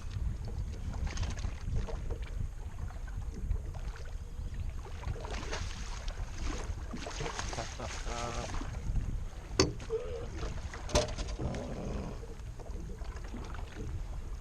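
Steady low wind and water rumble on a small fishing boat, with two sharp knocks about a second and a half apart past the middle.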